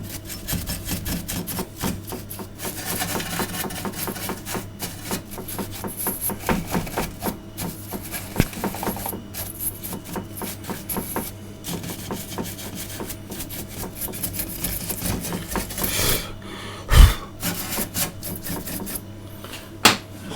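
Rapid scratching and rubbing as hands and tools work over the opened LCD TV's insides, with a heavy knock about three-quarters of the way through and a sharper one near the end.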